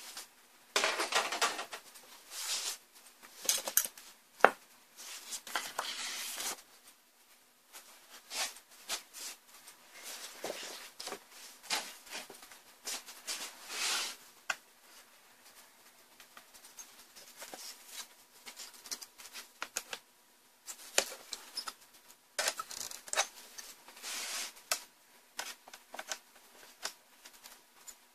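Hands dismantling an LCD panel, working its thin metal frame and edge rail: irregular scraping and rustling with light metallic clicks and taps.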